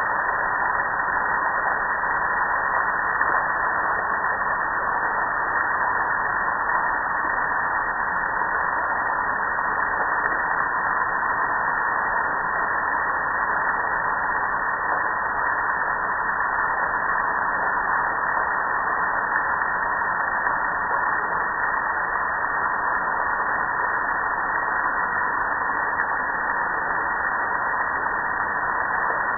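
Water pouring and splashing steadily over a soapy gas grill, an even rushing hiss that does not change.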